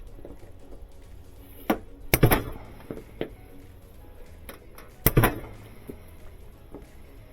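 Pliers and metal washer parts clicking and clanking as a wire or hose is worked through the cabinet: scattered sharp clicks, with two louder clusters of clanks about two and five seconds in.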